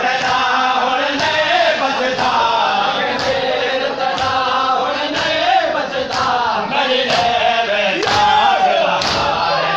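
Male noha reciter chanting a lament, with a crowd of men chanting along. Sharp slaps of matam chest-beating keep a steady beat a little more than once a second.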